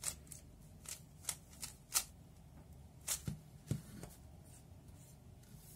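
A 3x3 Rubik's cube being turned through an OLL algorithm: quick, irregular plastic clicks of the layers snapping round, which die away after about four and a half seconds.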